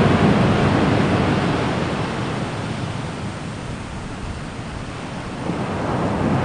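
Steady rushing noise with no tone or rhythm. It grows quieter toward the middle and swells back up near the end.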